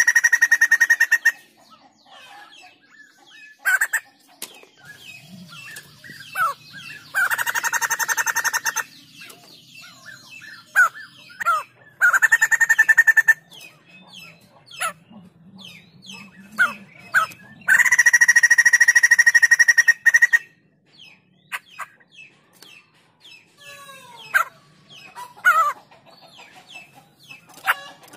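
White-crested laughingthrush calling in full song: four loud bursts of rapid rattling chatter, each a second or two long, with short sharp chirps and whistles between them.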